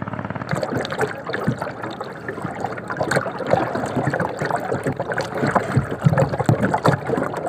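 Water splashing and gurgling against the hull of a small plywood sailboat under way.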